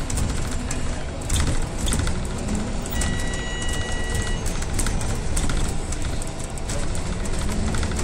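Cabin noise of an Alexander Dennis Enviro 350H hybrid bus on the move: a steady drivetrain and road rumble with frequent rattles and knocks from the body and fittings. A high steady tone sounds for about a second and a half around three seconds in, and a low hum rises gently near the end.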